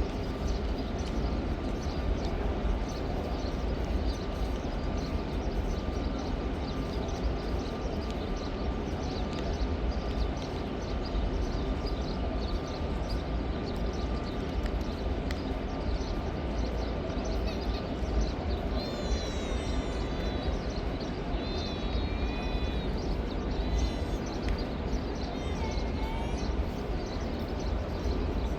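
Small birds chirping throughout over a steady low rumble of background noise, with clearer, louder warbling calls in the last third.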